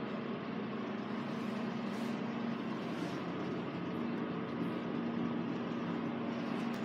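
Steady background rush with a constant low hum and no sudden events; the toilet is not being flushed.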